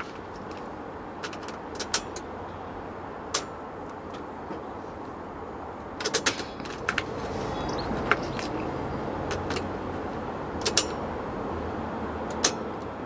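Car key and key ring clicking and jangling in the ignition lock of a Mercedes Sprinter van as the key is put in and turned to position 2, about a dozen sharp clicks over a steady low hum.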